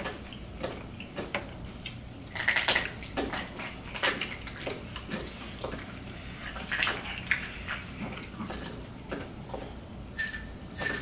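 Forks clicking and scraping on black plastic takeout trays, mixed with wet chewing.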